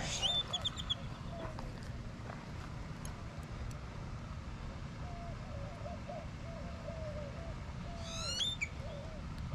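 Birds calling: a quick run of high chirps at the start, a string of low wavering whistled notes through the second half, and a fast trill of rising notes about eight seconds in, over steady low background noise.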